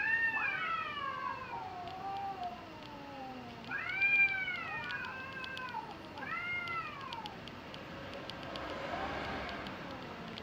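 Two domestic cats in a standoff, yowling at each other: long wailing calls that rise and fall in pitch, the loudest at the start and again about four seconds in, with shorter calls after and a faint one near the end.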